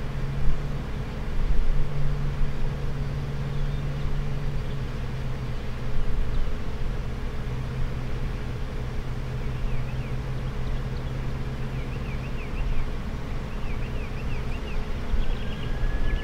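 Jet airliner engines running with a steady low hum and rumble; about fifteen seconds in a high whine starts rising as the engines spool up.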